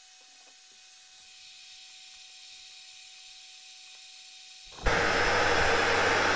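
Faint hiss, rising slightly about a second in as the peristaltic pump is switched on. About five seconds in, a loud, steady whirring rush with a low hum underneath starts abruptly: the power centrifuge spinning at speed.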